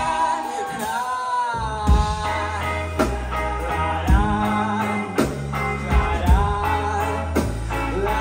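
A live rock band playing: sung lead vocal over electric guitars, electric bass and drums, with a drum hit about once a second. The bass drops out briefly near the start and comes back.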